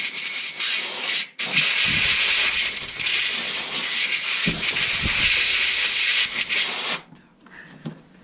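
Pressurised jet hissing hard in two long bursts with a brief break about a second in, then cutting off sharply near the end, as parts are blown or sprayed clean in a workshop. A few low knocks from handling sound underneath.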